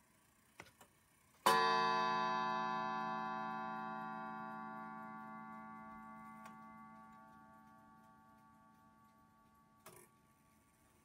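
Smiths Enfield Bakelite 'York' striking clock sounding its single half-hour strike: one blow on the gong about one and a half seconds in, ringing with many overtones and slowly fading over about seven seconds. A couple of faint clicks come just before it, and a short click comes near the end.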